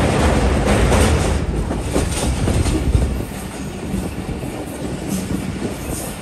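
Passenger train coaches running at speed, wheels rumbling and clattering on the rails over a steel girder railway bridge. The noise drops about three seconds in as the train comes off the bridge onto ballasted track.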